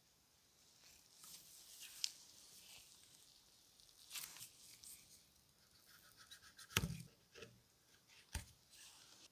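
Faint close-up sounds of knotting the stitching thread on a leather grip: thread rustling and drawing through the leather, with a few sharp clicks. The last click comes near the end, as a craft knife trims the thread end.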